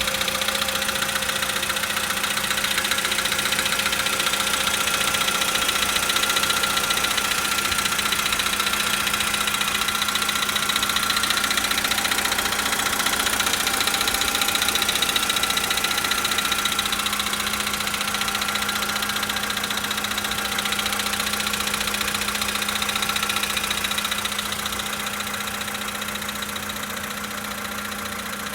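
Volkswagen Polo Sedan's 1.6-litre four-cylinder petrol engine idling cold, with the knock it makes from cold audible in the running. It runs steadily and gets a little quieter near the end.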